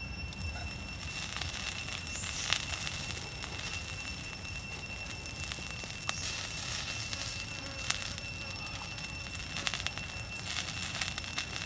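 Small wood campfire crackling, with a steady hiss and a few sharp pops scattered through.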